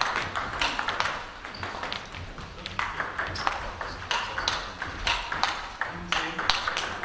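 Table tennis ball clicking off bats and the table in a rally, a run of short, sharp clicks at an irregular pace.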